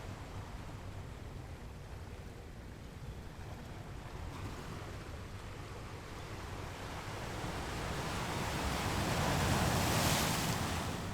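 Ocean waves breaking on rocks: a steady wash of surf, with one wave building for several seconds to a loud crash near the end, then falling away.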